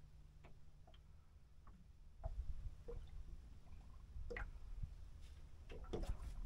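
Quiet sounds of a small fishing boat drifting on calm sea: a low rumble with scattered faint ticks and soft knocks from water lapping at the hull and the angler handling his rod and reel. The rumble grows louder about two seconds in, and a cluster of knocks comes near the end.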